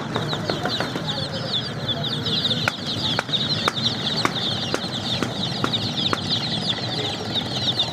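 A brood of baby chicks peeping continuously: many short, high chirps overlapping each other, with sharp clicks now and then.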